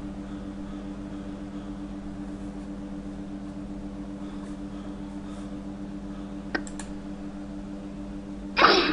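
A steady low hum with a single short click about six and a half seconds in; a loud rushing noise starts just before the end.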